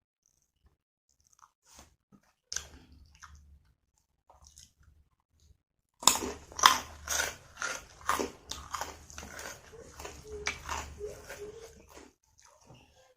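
Close-miked eating: a person biting and chewing crunchy food, mukbang-style. There are a few soft mouth clicks at first, then about halfway through loud, quick crunching, a few crunches a second.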